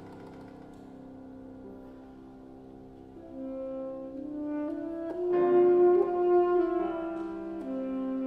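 Alto saxophone playing slow, held notes: soft and mellow at first, then swelling louder about five seconds in before easing back.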